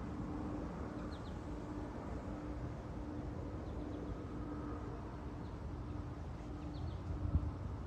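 Steady low outdoor rumble with a faint, interrupted droning hum, a few faint high chirps, and a low bump near the end.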